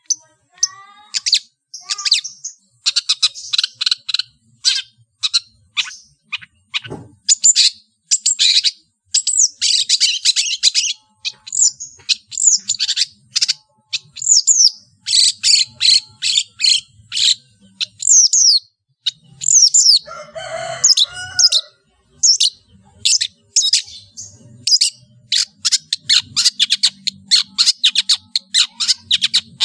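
Long-tailed shrike (cendet) singing a rapid, varied song packed with mimicked calls of other birds: quick, sharp, high chirps and trills. About twenty seconds in, a brief lower, harsher phrase.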